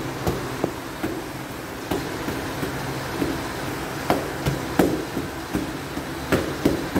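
Punches landing on padded focus mitts: about nine sharp, irregularly spaced smacks, some in quick pairs, with a pause in the middle. A steady low hum runs underneath.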